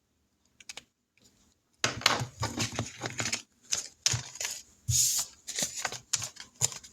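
Paper and cash envelopes being handled: a quick run of rustling and clicking that starts about two seconds in, after a near-silent pause.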